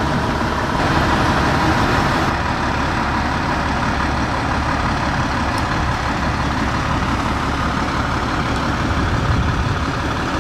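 Fire engine's diesel engine idling steadily, a dense, even rumble with no siren.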